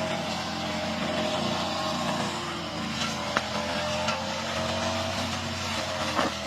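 Lawn mower engine running steadily while cutting, with a couple of sharp clicks over it.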